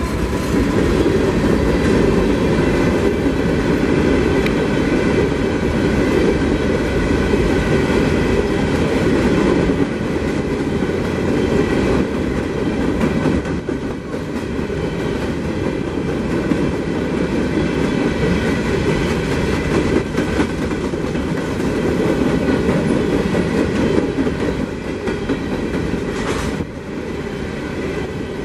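Freight train of loaded open hopper cars rolling past close by: a steady heavy rumble with the clickety-clack of steel wheels over the rail joints. A brief sharp noise sounds near the end.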